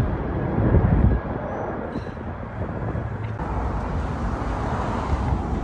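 Outdoor rumble of wind on the phone's microphone mixed with road traffic, with a louder gust about a second in.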